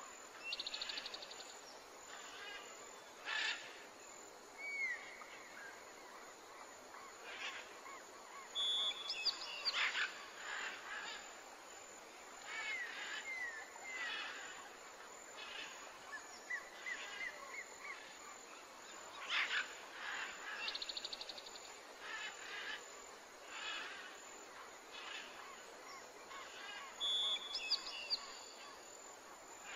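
Assorted bird calls and chirps with short whistled glides over steady natural background noise; the same stretch of calls repeats about every eighteen seconds.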